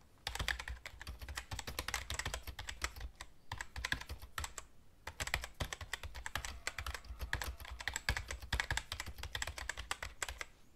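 Rapid computer-keyboard typing, keys clicking in quick runs, with short pauses about three seconds in and again around five seconds in.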